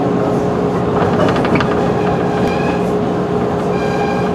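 JR 211 series electric train running, heard from inside the car: a steady rumble of wheels on rail under a constant hum, with a short cluster of rail-joint clicks about a second and a half in and two brief high-pitched squeals later on.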